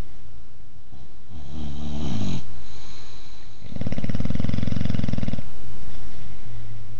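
A Boxer dog snoring twice: a shorter snore about a second in, then a longer, fluttering snore that starts about four seconds in and lasts a second and a half.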